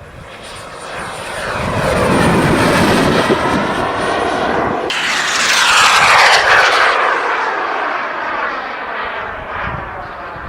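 Turbine-powered RC model jet making a low pass with its gear down. A high turbine whine grows louder, swells sharply about five seconds in, then falls in pitch and fades as the jet goes by.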